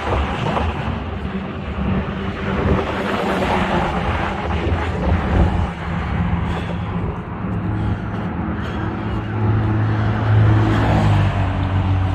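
Road traffic running past: a steady hum of car and truck engines and tyres, with one engine growing louder about eight seconds in and fading near the end.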